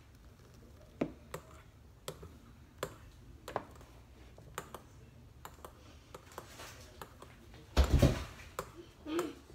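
Scattered light clicks and taps as a plastic tub and a glass mixing bowl are handled on a kitchen counter, then a loud thump about eight seconds in and a smaller knock just after.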